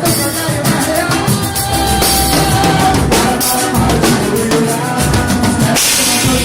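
Band music led by a drum kit playing a steady beat, kick and snare to the fore, under sustained pitched instrument notes; no singing.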